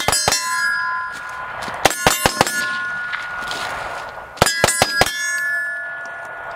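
Three quick strings of four or five AK rifle shots, about two seconds apart, each followed by a long metallic ringing as steel targets are hit.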